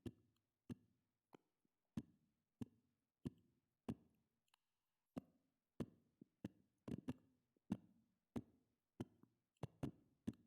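Near silence broken by faint, sharp clicks about every two-thirds of a second, with a few extra clicks slipped in between.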